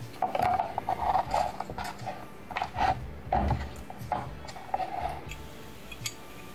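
Handling noise of hardware on a wooden tabletop: a plastic cooling fan and parts being picked up, moved and set down beside a transformer, in a run of irregular knocks and rattles. A heavier low thump comes about three and a half seconds in.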